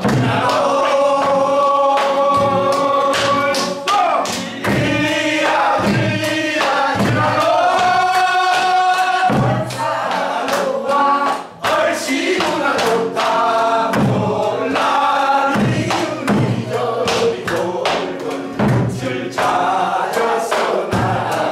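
A group of voices singing a Korean folk song (minyo) together, accompanied by a nylon-string classical guitar, with hand claps keeping the beat.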